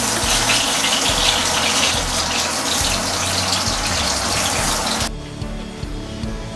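Chicken pieces sizzling and crackling as they fry in hot oil in a pan. The sizzle cuts off suddenly about five seconds in, leaving background music.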